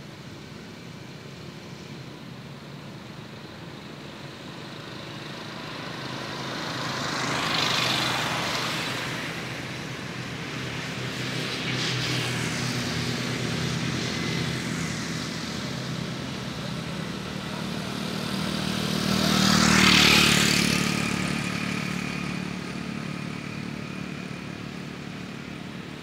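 Motorcycles riding past on the street. The sound swells as one goes by about 8 seconds in and stays raised for a while; a second, louder pass-by comes about 20 seconds in.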